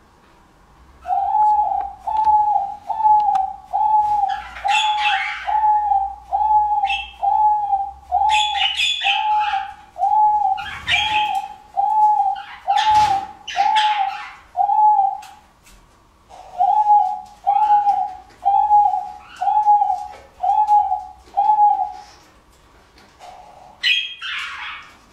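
Diamond dove cooing: a long run of identical short, soft coos, a little under two a second, with one brief pause about two-thirds through and a stop near the end. It goes with the bird's tail-fanning bowing display, the courtship call of a male diamond dove. A few short, higher-pitched bursts sound in between the coos.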